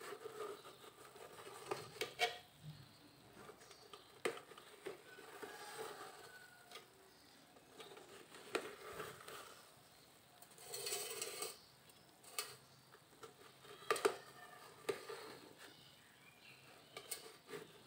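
A knife scoring warm, set Mysore pak in an aluminium tin: irregular clicks and short scrapes as the blade meets the tin's metal base and rim, with a longer scrape about eleven seconds in.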